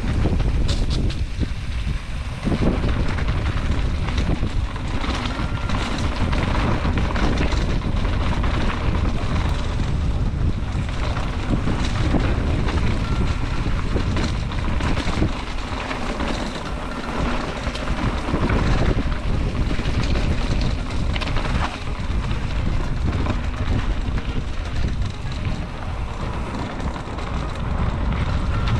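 Wind buffeting the microphone of a Canyon Lux mountain bike being ridden along a dirt trail, with frequent small knocks and rattles from the bike over the rough ground.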